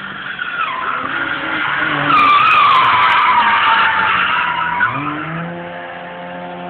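Car tyres screeching through a drift, with a wavering squeal that is loudest about two to four seconds in and fades out. Then the engine revs up about five seconds in and holds its note.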